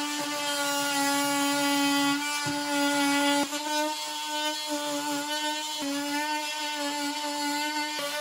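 Ryobi 18V One+ cordless oscillating multi-tool buzzing steadily as its blade cuts through drywall, its pitch stepping up slightly about three and a half seconds in.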